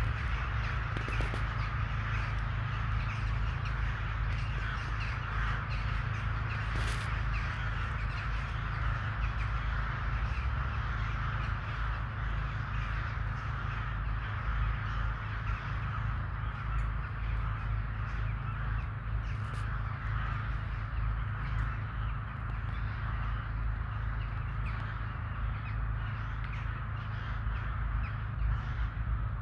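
A large flock of crows cawing continuously, many calls overlapping into a dense chatter, over a steady low rumble.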